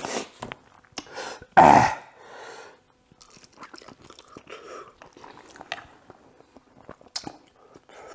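A person eating instant ramen noodles: slurping and chewing, with many small wet clicks and smacks. About a second and a half in there is a loud, short puff of breath, as from a mouth burning on hot, spicy noodles.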